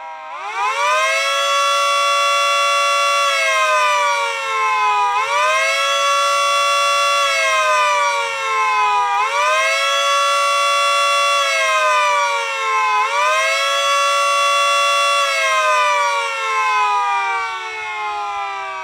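A miniature Federal Signal 2T22A dual-tone siren winds up from silence. It then cycles up and down in pitch, rising and holding for about two seconds, then dipping, about every four seconds, four times. Near the end it begins to wind down in pitch.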